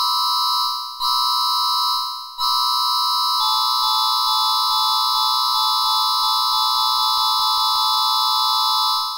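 Electronic emergency-alert attention tone: a steady synthetic chord of several pitches near 1 kHz. It sounds twice briefly, each time fading away, then holds for about six and a half seconds before fading out.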